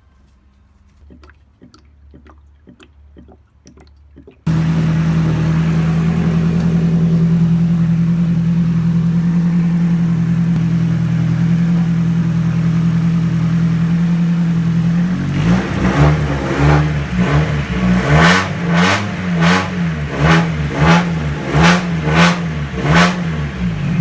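Nissan Silvia S14's four-cylinder SR20 engine, its exhaust leak now repaired, starts sounding abruptly about four seconds in and runs steadily. In the second half it is revved in a quick series of throttle blips, the pitch rising and falling about once a second.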